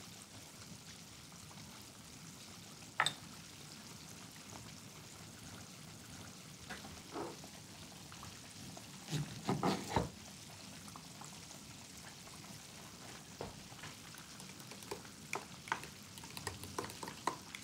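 Steady low sizzle of fish deep-frying in a pot of oil, with scattered knocks and clicks of kitchen handling: a cluster of sharper knocks about halfway through, and quick light taps of a metal spoon stirring in a ceramic ramekin near the end.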